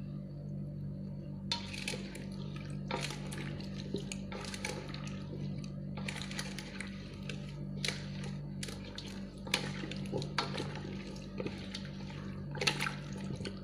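Wet, squelching stirring of papaya slices in sugar syrup in a stainless steel bowl, worked by hand and a plastic spoon, in irregular strokes starting about a second and a half in. The sugar is dissolving into juice that the stirred papaya releases. A steady low hum runs underneath.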